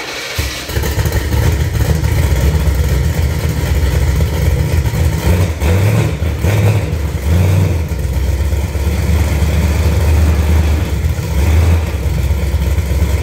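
Engine of a hot-rodded 1984 Chevy S10 pickup running loudly just after being started, its low rumble rising and falling unevenly.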